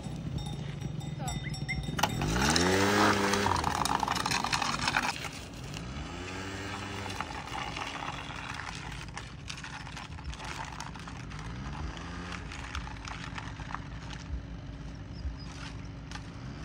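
Cows mooing several times as the herd walks along a paved lane, each moo a long call that rises and falls in pitch, the loudest about two seconds in. Under it run the patter of hooves and a motor scooter's engine ticking over at walking pace.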